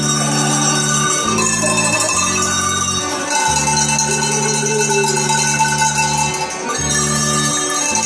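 Tuned cowbells rung by hand to play a tune, with sustained low backing chords that change every second or few.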